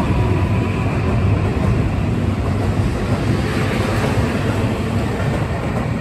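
Keihan 7000 series electric train pulling out of a station past the platform: a steady rumble of wheels on rails, with a faint motor whine that fades after about a second.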